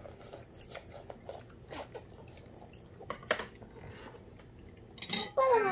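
Metal spoons and chopsticks clicking and scraping against ceramic bowls during a meal, with an occasional slurp of udon noodles or broth. A child's voice is briefly heard near the end.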